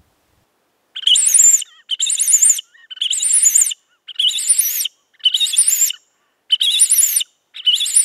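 Clausen Predatorcall 3, a mouth-blown bird distress call, blown in seven short, high-pitched, wavering squeals about a second apart, imitating a small bird in distress.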